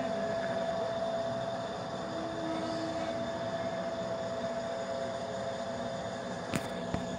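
Yellow metre-gauge works locomotive running beside the track, with a steady whine over its engine noise. Two sharp clicks come near the end.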